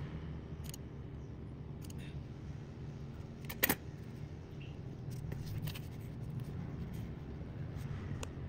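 Scissors blades clicking and handling noise while soft rubber is trimmed: scattered faint clicks, one sharp louder click about three and a half seconds in, over a steady low hum.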